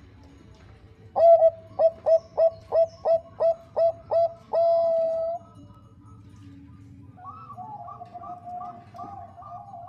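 Zebra dove (Bangkok perkutut) calling. A quick run of about nine short, loud cooing notes ends in one longer held note. A second, fainter series of notes begins about seven seconds in.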